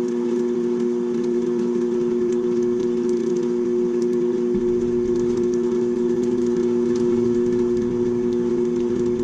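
KitchenAid stand mixer motor running steadily with its meat grinder attachment, grinding partly frozen chuck roast into ground beef: a constant hum with a steady whine. A lower rumble joins about halfway through.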